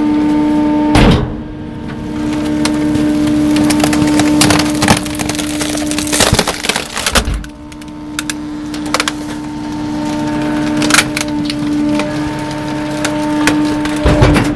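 Garbage truck's hydraulic packer running with a steady hum while it compacts a load of trash: many sharp cracks and snaps of breaking material, with a few heavier crunches about a second in, midway and near the end.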